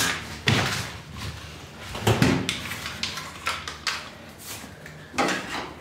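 Kilmat foil-faced sound deadener sheets and a cardboard template being handled. The foil crinkles and rustles in an irregular string of short strokes, a few of them louder.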